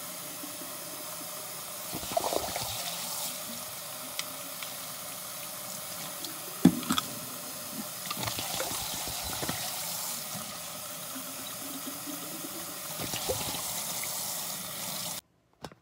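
Kitchen tap running into a stainless steel sink while a glass bottle is rinsed under the stream, with a few sharp knocks of the bottle against the sink, the loudest a little under halfway through. The water sound cuts off suddenly near the end.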